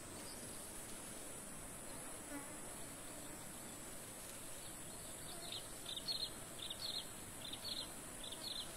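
Steady high-pitched drone of insects in a forest, with a run of short, sharp high chirps, mostly in pairs, starting about halfway through.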